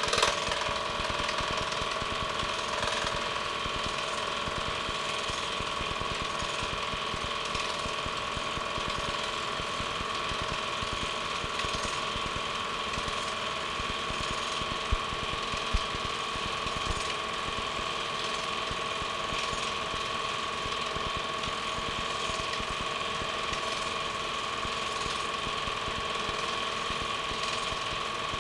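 Film projector running: a steady mechanical whir with a fast, even clatter from the film transport, heard through a home-movie transfer.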